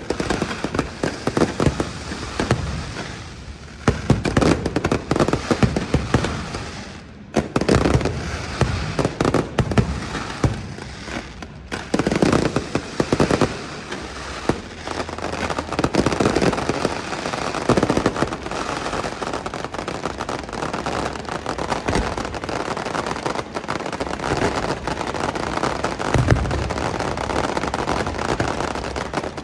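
Aerial fireworks display: repeated booming shell bursts with crackling between them. In the second half the crackle becomes a dense, near-continuous stream.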